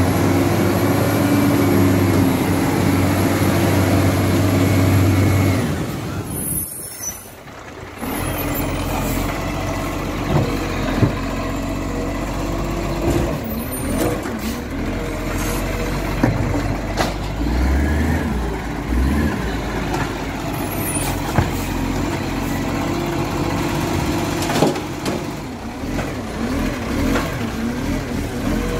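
Iveco side-loader garbage truck's engine running steadily, then its hydraulic lifting arm working, with repeated clunks and knocks as it lifts and tips a wheelie bin into the body. The sound drops away sharply for a moment about six seconds in.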